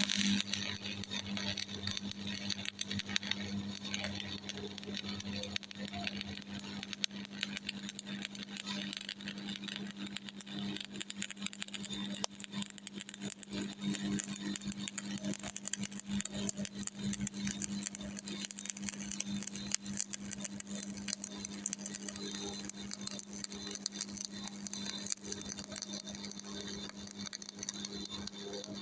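Stick (shielded metal arc) welding with an E6013 3.2 mm electrode on a Miller Thunderbolt 225: the arc crackles steadily throughout, over a steady low hum. The weld being run is a vertical-up 3F fillet.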